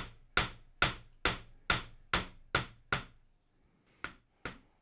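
Flat face of a steel hammer striking a copper bar on a steel block: a steady run of eight solid blows, a little over two a second, each with a bright metallic ring. After a short pause come two lighter blows near the end, the softer blows used further up the length of the rod.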